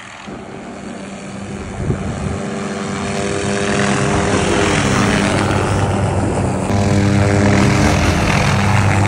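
A small helicopter's engine and rotor running. It grows louder over the first few seconds, then holds steady, with its pitch dipping a couple of times.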